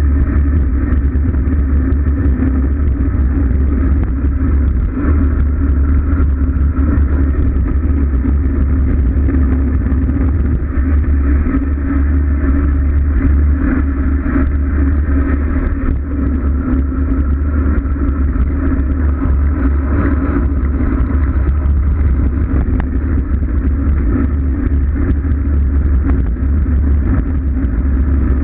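Steady, loud wind rumble buffeting an action camera's microphone on a road bike descending at speed.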